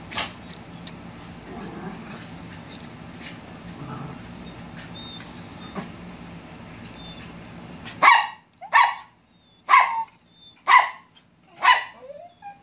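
Small poodle barking in short, sharp, high-pitched yips, five or six barks about a second apart, starting about eight seconds in.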